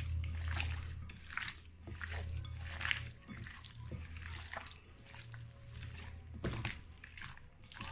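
Hands squishing and massaging seasoning into raw chicken wings in a bowl: irregular wet squelches, over a steady low hum.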